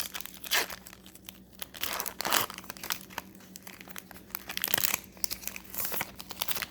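Crinkling and rustling of a foil Magic: The Gathering booster pack wrapper and its cards being handled, in irregular short crackles.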